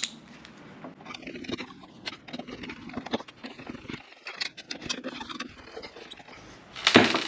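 T20 Torx screws being undone on the fuel pump housing: a run of small, irregular clicks and scrapes from the driver bit and screws, with a brief louder sound near the end.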